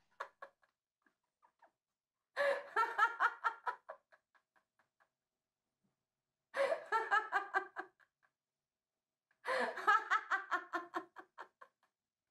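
A woman laughing hard in three bouts of rapid pulsed laughs, each lasting about one and a half to two seconds and trailing off, with silence between them.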